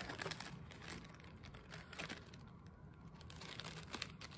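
Plastic zip-top bag crinkling and rustling faintly as it is handled and pulled open, with scattered small clicks.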